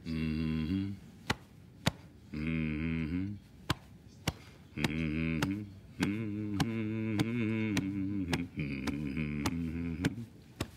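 A man hums deeply and rhythmically, in short low phrases with pauses, while thumping his chest with his fist in a steady beat a little under two times a second.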